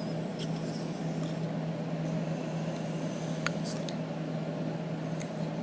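A steady low hum, with a few faint clicks and rustles from handling a plastic drinking straw.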